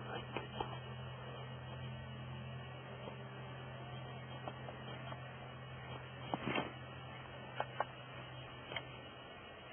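Steady low hum with a few faint sharp clicks scattered through it; the hum cuts off near the end.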